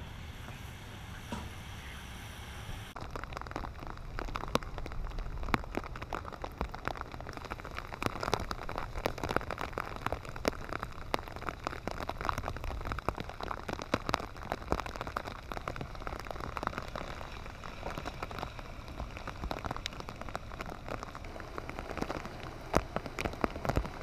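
Steady rain falling: a hiss of noise with a dense scatter of sharp drop hits, which grow louder and closer about three seconds in.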